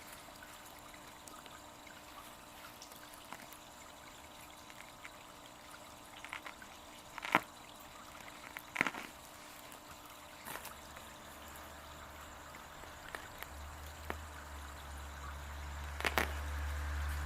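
Small garden waterfall trickling steadily into its pond. A few sharp clicks cut across it, and a low hum comes in about halfway through and grows louder toward the end.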